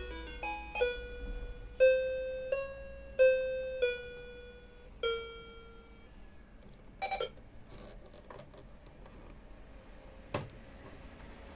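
Toy cash register playing a short electronic tune of beeping notes, which stops about five seconds in. Then a brief rattle of plastic clicks and, near the end, a single sharp plastic click as the toy is handled.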